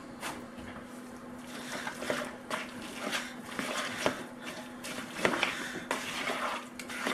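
Wooden spoon stirring a wet ricotta and spinach filling in a plastic bowl, with irregular squelching and scraping that starts about a second and a half in. A faint steady hum runs underneath.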